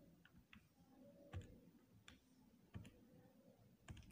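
Faint clicks of keys pressed on a Casio fx-991ES PLUS scientific calculator: about six separate presses at an uneven pace, the loudest a little over a second in.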